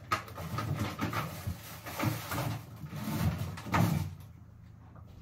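Groceries being put away in an open refrigerator: irregular knocks and light clatter of packages and containers against the shelves, with rustling, stopping about four seconds in.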